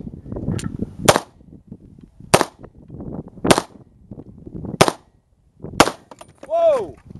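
Five single shots from a Century Arms AK-74 rifle chambered in 5.45×39 mm, about a second apart. The fifth shot is the rifle blowing up. A short cry follows, rising then falling in pitch.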